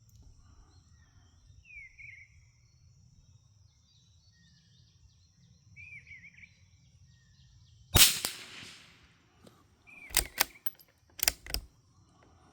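A single shot from a Brno Model 1 bolt-action .22 LR rifle about two-thirds of the way in, followed a couple of seconds later by two quick clusters of sharp metallic clicks as the bolt is worked to eject the case and chamber the next round.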